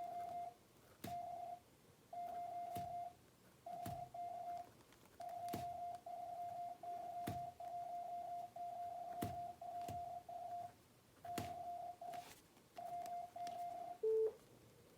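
Computer-generated Morse code at 25 words per minute from the koch_trainer practice program: a single steady beep keyed in quick dots and dashes, grouped into characters with short pauses between them. Faint scattered taps of a pencil on paper come through as the code is copied by hand. Near the end there is one short, louder beep at a lower pitch.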